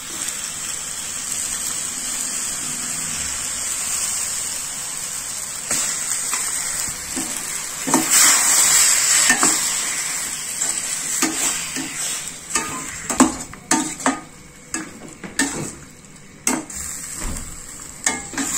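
Raw chicken pieces sizzling in hot oil and onion-tomato masala in a stainless steel pot. In the second half a metal spatula scrapes and clicks against the pot as the chicken is stirred, the clicks coming quickly near the end.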